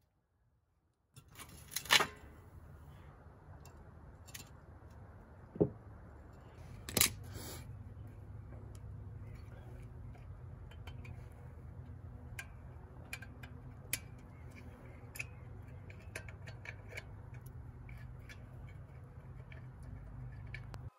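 Small metal clinks and taps of a wheel hub, its fasteners and hand tools being handled on a removed rear trailing arm, with three sharper metallic knocks in the first seven seconds. A steady low rumble starts about a second in.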